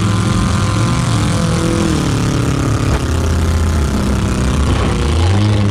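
Demolition derby car engines running and revving, the engine note falling and rising again.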